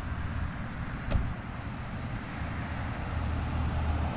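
A car's engine and tyre noise as it drives along the road, a steady low rumble that grows a little toward the end, with one short sharp click a little over a second in.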